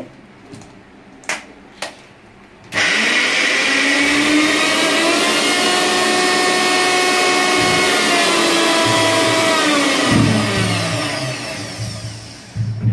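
Electric mixer grinder switched on, grinding ice and grated coconut in its steel jar: the motor starts suddenly a few seconds in after two sharp clicks, runs steadily for about seven seconds, then is switched off and winds down with a falling whine.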